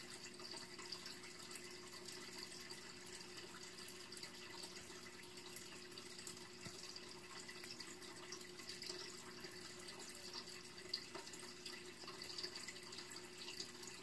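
Faint steady background hiss with a low hum and a few soft ticks.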